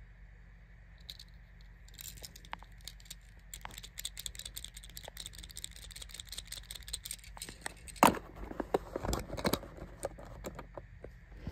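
A Tomica die-cast toy car handled in the fingers: a run of small, quick clicks and rattles, then a sharp knock about eight seconds in and a cluster of knocks and rustles as it is set down on its cardboard box.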